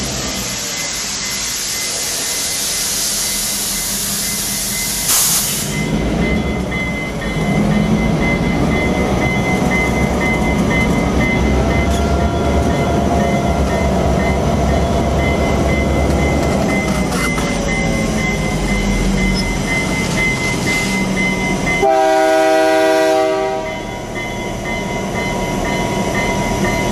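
An Ohio Central EMD FP9 diesel locomotive's 16-cylinder 567 engine running up close. A loud hiss of air fills the first few seconds, and near the end a train horn sounds one chord for about a second and a half.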